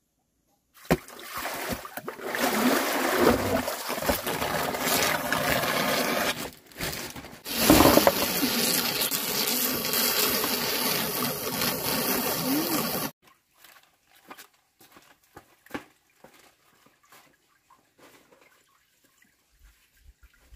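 Running water splashing in a plastic basin holding pieces of meat, loud and steady, with its loudest burst about eight seconds in. It stops abruptly about thirteen seconds in, leaving only faint small clicks and drips.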